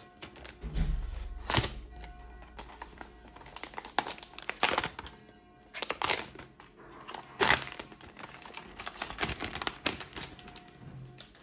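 Background music under handling noise: a plastic wall-plate Wi-Fi access point being turned over in the hands, with packaging crinkling and a series of sharp clicks and knocks. The loudest knocks come about a second and a half in and at about six and seven and a half seconds.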